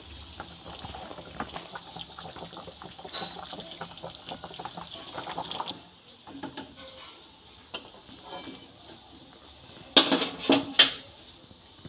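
Water boiling in a metal kadai while a steel ladle sloshes and scrapes through it, lifting out leaf-wrapped fish parcels. About ten seconds in come three or four loud sharp knocks, the loudest sounds here.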